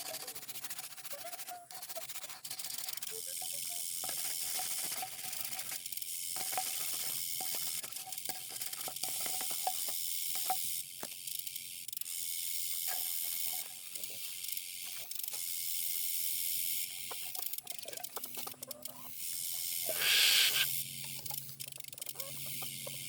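Scrubbing brush scouring a chick waterer with soapy water: a scratchy hiss that comes in strokes about a second long, with small knocks, and a louder swish near the end.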